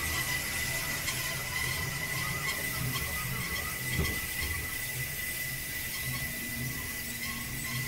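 Steel wheels of a Bernina Express train squealing against the rails on a tight curve: one steady high-pitched squeal over the low rumble and clatter of the wheels on the track, with a single knock about four seconds in.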